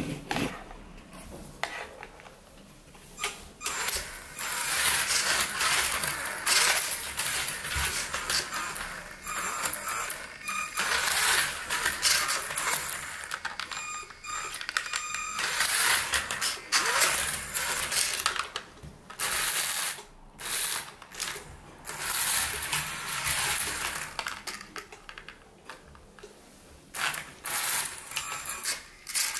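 Toy remote-control race car's small motor and gears running in stretches of a few seconds, with clicking and rattling of plastic on a tiled floor.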